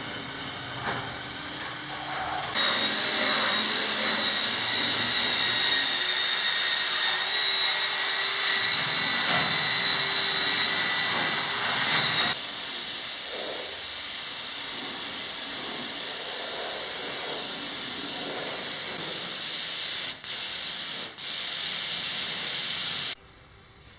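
Compressed-air spray gun hissing steadily as grey primer is sprayed onto the underside of the car body. The spray stops twice briefly near the end, then cuts off.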